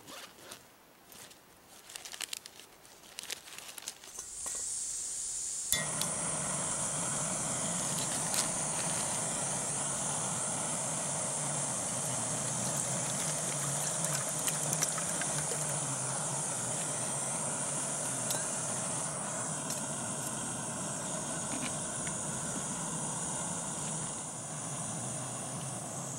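Backpacking gas stove on a Primus canister being set going: a few handling clicks, then gas hissing from the opened valve about four seconds in. A second and a half later it catches with a sharp click and burns with a steady rushing hiss.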